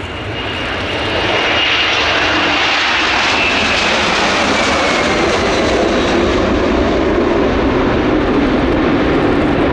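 Boeing KC-767J tanker's twin General Electric CF6-80C2 turbofans at take-off thrust during the take-off roll and lift-off. The jet noise grows louder over the first second or so, then stays loud and steady, with a high whine that slides down in pitch as the aircraft passes.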